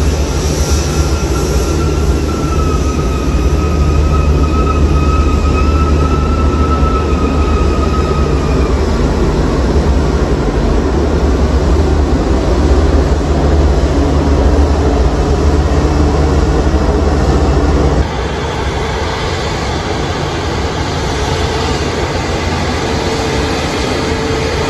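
Jet airliner engines, a steady low rumble with a thin whine over it that fades out about nine seconds in. The level drops suddenly near the end.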